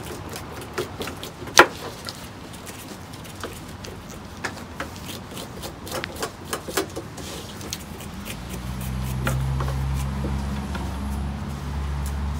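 Knives scraping the spines off prickly pear cactus pads (nopales) and knocking on cutting boards: a run of short sharp scrapes and taps, the loudest knock about one and a half seconds in. After about eight seconds a low steady hum joins in.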